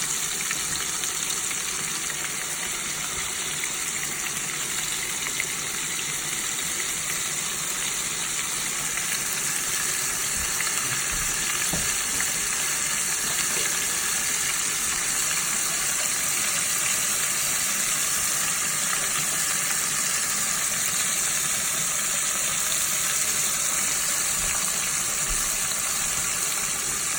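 Flour-coated shrimp deep-frying in hot oil, a steady sizzle that grows slightly louder over the stretch.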